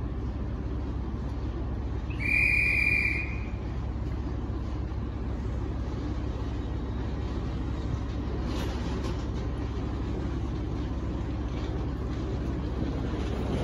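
HST power car 43304's MTU V16 diesel engine idling with a steady low drone at a station stop. About two seconds in, a single shrill whistle blast lasting about a second cuts through it.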